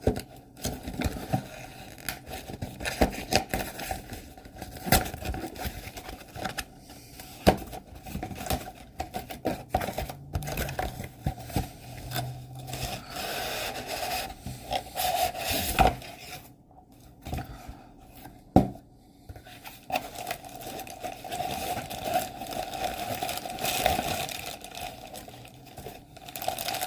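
A toy's cardboard box and plastic packaging being opened and handled: scraping, crinkling and tearing, with many scattered clicks and taps.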